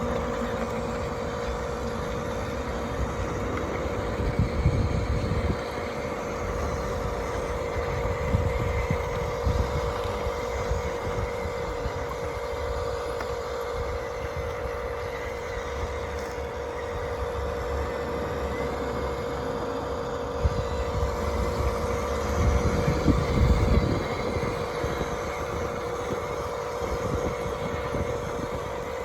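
Radio-controlled toy construction machines running: a steady whine from their small motors and gearboxes, with a few louder low rumbling stretches, the strongest near the end.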